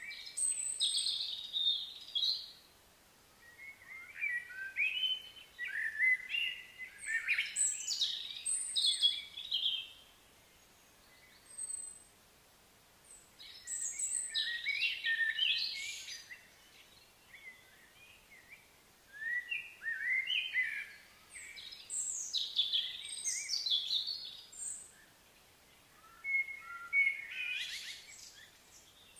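Songbirds chirping and singing in bouts of a few seconds each, quick high notes with short quieter gaps between bouts.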